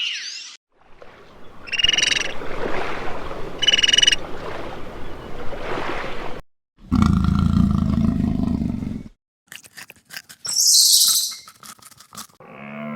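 A run of short animal-sound recordings, cut one after another with brief silences between them. There are two short high calls about two seconds apart over a noisy background, then a low, rough sound lasting about two seconds, then clicks and a short high call near the end.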